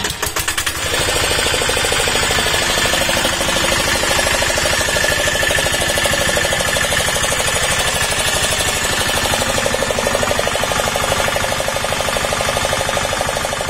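Greaves single-cylinder diesel engine catching after being hand-cranked, firing unevenly for about a second, then running steadily with a fast, even beat.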